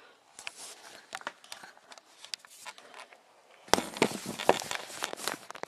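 Handling noise from a concealed camera: hands and clothing rubbing and knocking right against its microphone, scattered clicks and rustles, growing louder a little past halfway.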